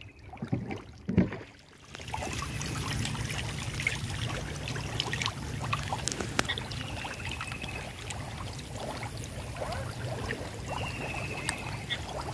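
A dense mass of hybrid magur catfish thrashing at the surface of shallow pond water: continuous splashing and sloshing, dotted with many small plops. A sharp knock about a second in is the loudest moment.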